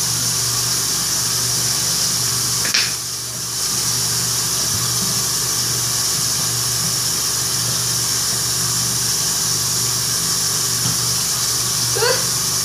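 Bathroom sink tap running steadily into the basin, with a click and a brief drop in the flow sound a little under three seconds in.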